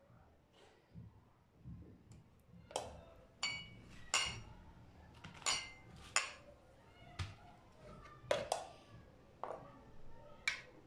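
A spoon clinking against cut-glass dessert cups as thick, set semolina pudding is spooned into them: about ten sharp, irregular clinks that each ring briefly.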